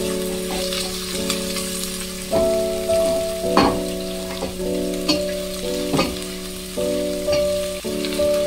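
Chopped red onions sizzling in hot oil in a stainless steel pot, stirred with a silicone spatula that scrapes and knocks against the pot a few times. Background music with sustained chords plays under it.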